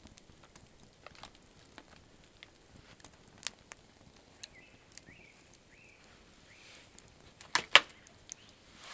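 Scattered sharp clicks and snaps, about one a second, with a much louder double snap about seven and a half seconds in. A few faint short chirps sound in between.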